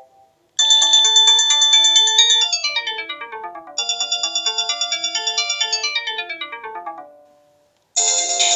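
Panasonic cordless phone playing a melodic ringtone: a short tune of quick notes played twice. After a brief pause a different, fuller ringtone starts near the end.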